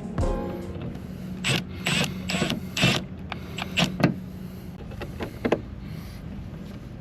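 A loose plastic trim piece on a Toyota FJ Cruiser being worked back into place by hand: a string of short clicks, knocks and scrapes, fewer near the end. Its retaining tab is broken, so the piece stays a little loose.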